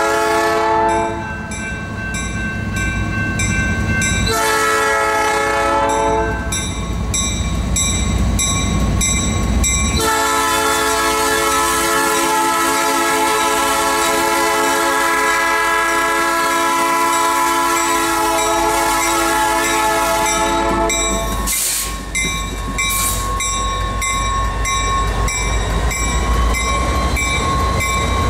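Air horn of a Norfolk Southern EMD SD40-2 diesel locomotive leading a freight train: a blast ending about a second in, a short blast a few seconds later, then one long blast held about eleven seconds. When the horn stops, the engines and wheels of the passing locomotives and cars rumble and clatter on the rails, with a few clanks.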